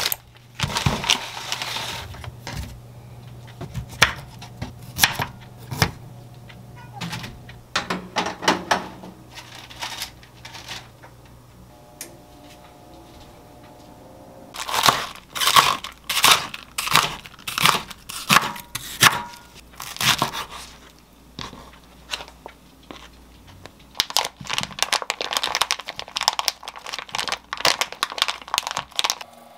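Kitchen handling sounds: plastic bags crinkling and rustling among short knocks and clicks on the counter, over a low steady hum that stops about twelve seconds in. Near the end a plastic sausage pack is pulled open and rustled.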